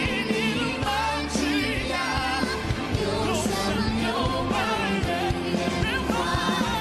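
Background pop music with a singing voice over a steady bass and drum beat.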